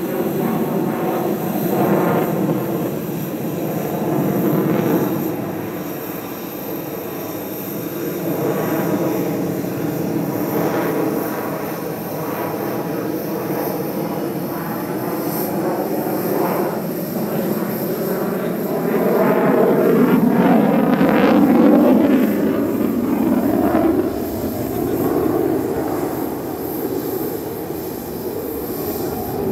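Sukhoi Su-30MKM fighter's twin AL-31FP turbofan jet engines during a slow display manoeuvre, a continuous engine noise that rises and falls as the aircraft turns. It is loudest about twenty seconds in.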